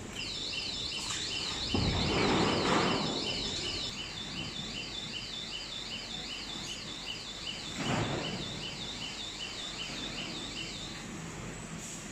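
Electronic warning alarm on a plywood hot press line, warbling up and down about three times a second, stops about eleven seconds in. Two bursts of machine noise cut in, the louder about two seconds in and a shorter one about eight seconds in.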